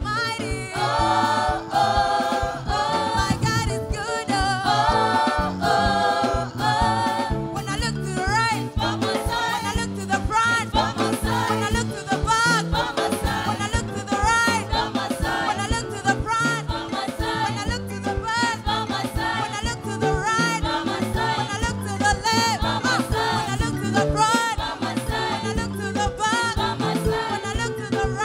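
Live gospel praise music: a group of singers on microphones sings over a drum kit keeping a steady upbeat rhythm, with wavering held notes in the lead voice from about a third of the way in.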